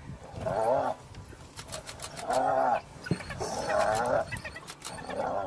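Spotted hyena giggling under attack by African wild dogs: four wavering, quivering squeals about a second apart, the last running on past the end, with sharp clicks between them. The giggle is the hyena's call of distress and submission.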